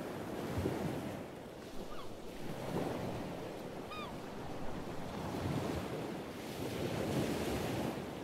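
Sea waves washing and surging in slow swells, with wind. A bird gives a short downward-curving call about four seconds in, and a fainter one comes earlier.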